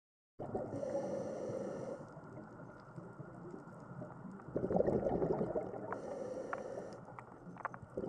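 Underwater bubbling and gurgling, muffled as heard through an underwater camera, starting just under half a second in and swelling twice about four seconds apart, with a faint hiss over parts and a few short clicks.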